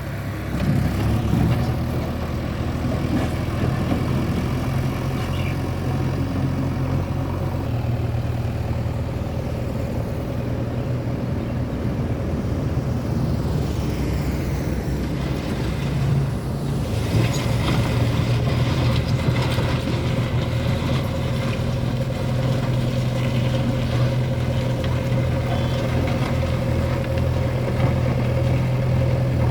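JCB 3DX backhoe loader's diesel engine running steadily as the machine works, its engine note shifting in pitch about seven seconds in and again a little past halfway.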